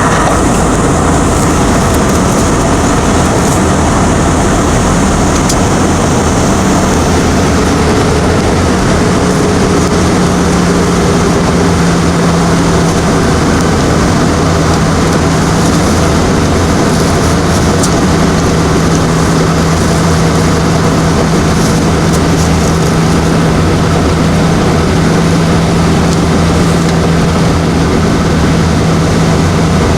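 Airliner cabin noise during the descent to land: the steady rush of engines and airflow. A steady low hum sets in about ten seconds in and holds.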